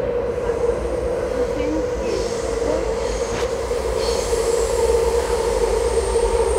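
Taipei MRT metro train running, heard from inside the passenger car: a steady low rumble with a constant hum, and a higher hiss that grows about two seconds in.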